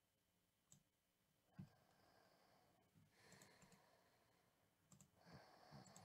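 Faint computer mouse clicks in near silence: a few scattered clicks, the loudest about a second and a half in, and more bunched together near the end.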